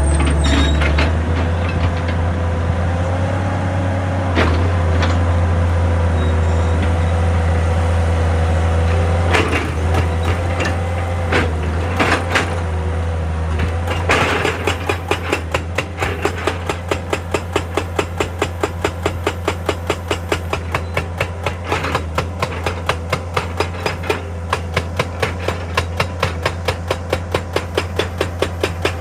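Excavator's diesel engine running steadily with a few scattered clanks of rock and steel. From about halfway, a hydraulic rock breaker starts hammering in an even rapid rhythm, about three blows a second.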